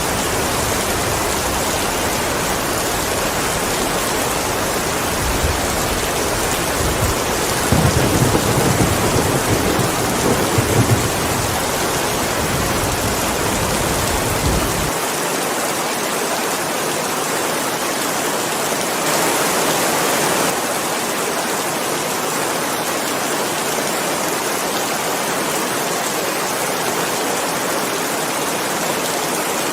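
Steady rain, a dense even hiss, with a low rumble of thunder rising about eight seconds in and fading by about eleven seconds.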